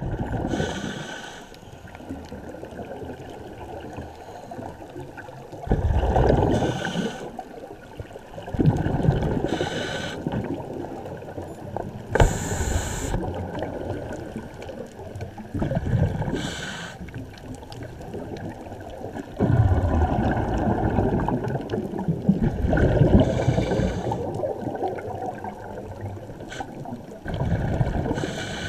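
Scuba regulator breathing underwater: loud bubbling rumbles of exhaled air about every three to four seconds, with a muffled hiss in between.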